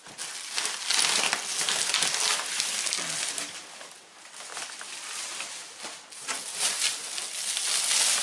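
Bubble wrap and plastic wrapping crinkling and rustling unevenly as wrapped artificial Christmas tree sections are handled and lifted out of their cardboard box, quieter for a moment about halfway through.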